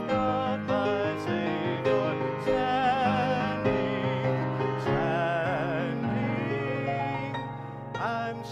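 A man singing with a wavering vibrato while accompanying himself on a Kawai grand piano.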